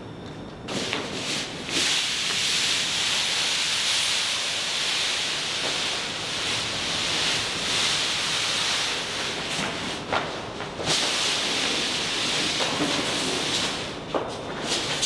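Rustling and crinkling of a large printed sheet as it is lifted, dragged and gathered up off the floor: a dense, hissing rustle that starts a moment in, with brief lulls about ten and fourteen seconds in.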